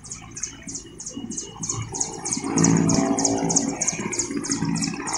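Mil Mi-17 helicopter running on the ground with its rotors turning, a fast, even pulsing of the blades over the turbine noise, growing louder about two and a half seconds in.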